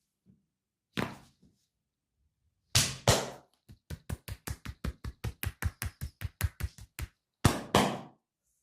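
Percussive massage strikes with the hands on the body: a single slap, two heavy slaps, then a quick even run of lighter strikes at about five a second, finished with two more heavy slaps.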